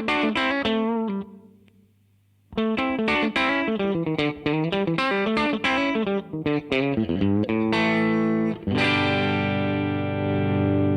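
Electric guitar through a DemonFX YJM308 overdrive pedal, playing fast picked single-note runs in a driven tone. The runs stop for about a second and a half near the start, and near the end a held chord rings out.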